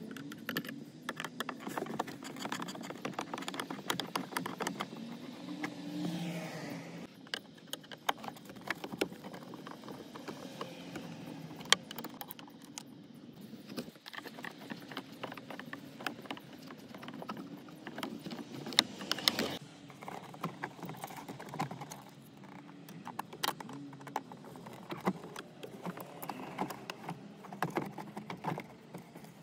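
Hard plastic dashboard trim clicking, scraping and rattling as the instrument-cluster bezel of a 2005 Toyota Land Cruiser is pried loose with a flat screwdriver and pulled off by hand. The handling sounds are irregular, with a couple of louder sharp snaps of clips letting go.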